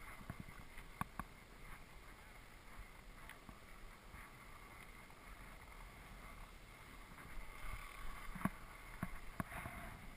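Skis hissing and scraping over firm groomed snow during a steady descent, with a few sharp clicks along the way. The scraping grows a little louder in the last few seconds.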